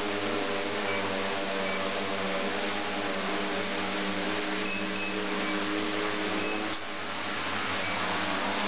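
Multirotor quadcopter's electric motors and propellers running with a steady whirring hum while it hovers in altitude hold. The sound dips briefly about seven seconds in, then picks up again as it comes down low.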